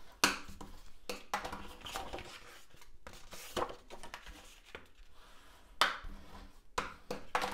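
Hands folding and creasing cardstock along its pre-scored lines on a cutting mat: paper rustling and sliding, broken by a few sharp taps and knocks as the card is pressed flat and set down.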